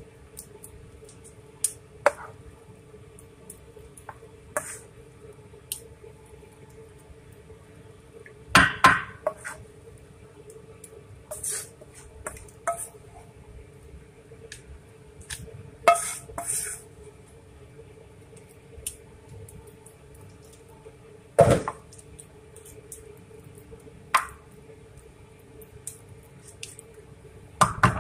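A metal spoon scraping and tapping against a metal bowl and a glass baking dish while a soft herb and garlic paste is spread over fish, in scattered clicks with a few louder knocks. A steady hum runs underneath.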